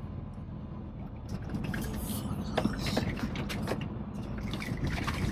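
Semi-truck engine running, heard from inside the cab, with irregular clicks and creaks from the cab starting about a second in.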